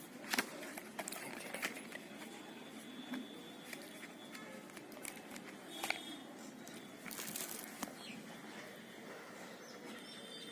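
Scattered small clicks and taps of a smartphone being handled as its SIM tray is opened, with a few sharp clicks in the first two seconds, one near the middle and a cluster about seven seconds in.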